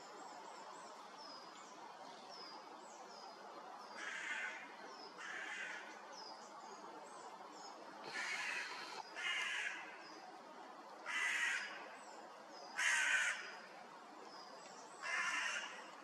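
Hooded crow cawing seven times, single caws spaced one to two seconds apart, the loudest about 13 seconds in. Behind them, small songbirds repeat short, high, falling calls.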